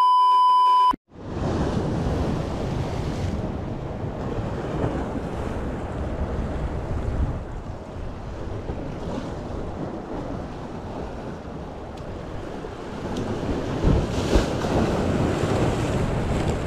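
A steady test-tone beep, the loudest sound here, lasts about a second at the start and cuts off sharply. Then ocean surf washing at the rocks, with wind buffeting the microphone.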